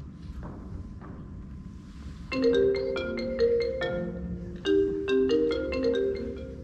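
Mobile phone ringtone: a marimba melody of quick, separate notes, starting about two seconds in.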